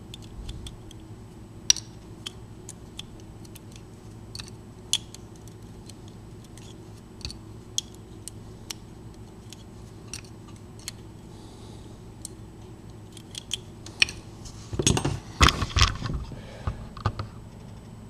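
Small metallic clicks and ticks of tweezers taking brass driver pins out of a deadbolt's lock cylinder and setting them down in an aluminium pin tray, scattered every second or so over a faint steady hum. About fifteen seconds in comes a louder flurry of clattering handling noise.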